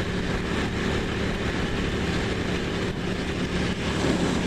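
Ducati Monster's V-twin engine running at a steady, unchanging pitch over a steady rush of noise.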